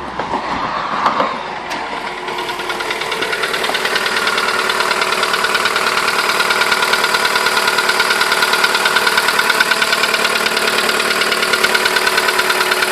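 Volkswagen Golf 1.4 16V four-cylinder petrol engine settling to idle after a rev, then idling with a fast, even knocking. The owner says it knocks hard when cold, fades once warm, and suspects loose pistons (piston slap).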